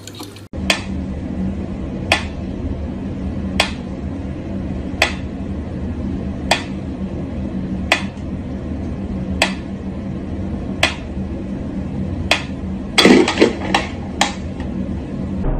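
Mechanical pendulum metronome ticking slowly, one sharp click about every second and a half, over a low steady hum. Near the end comes a quick flurry of louder knocks and clatter.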